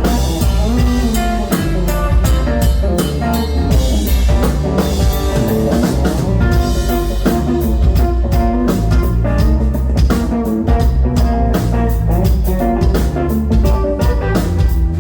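Live band playing an instrumental: a Fender Telecaster electric guitar playing over a drum kit keeping a steady beat.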